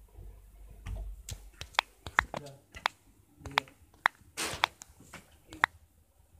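Irregular sharp clicks and taps, a few each second, with a short rustle about four and a half seconds in.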